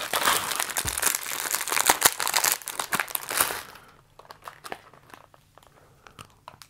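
Biscuit packet being handled and opened, its wrapper crinkling and crackling loudly for about four seconds, then only faint light rustles and clicks.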